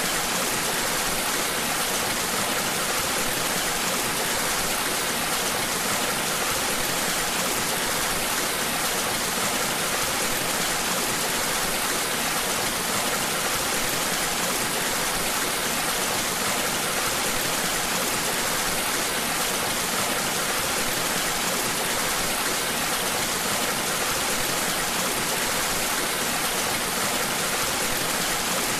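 Steady rushing of whitewater pouring through an artificial canoe slalom channel.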